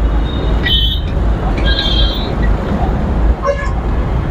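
Wind buffeting and road rumble while riding a motorcycle through city traffic, with short horn toots about a second in and again around two seconds in.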